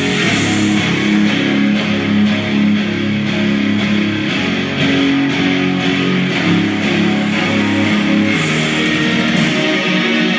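Loud guitar rock music playing through a Wet Sounds Stealth 10 soundbar mounted in a side-by-side, heavy in highs and mids with little bass.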